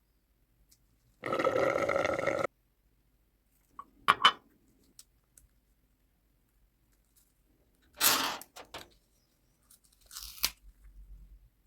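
Paper being handled and worked in short, separate bursts of crinkling and crunching, with a couple of sharp clicks about four seconds in.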